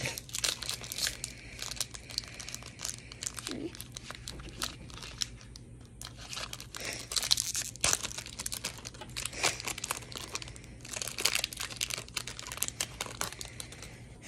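Foil wrapper of a Pokémon trading card booster pack crinkling and tearing as it is opened, in irregular bursts of crackles.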